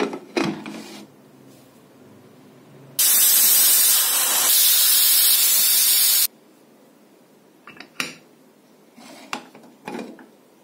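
Aluminium pressure cooker's weight valve venting steam in a loud, even hiss for about three seconds: the third whistle, the sign that the potatoes have cooked under pressure. A few short metal clinks come at the start and again near the end.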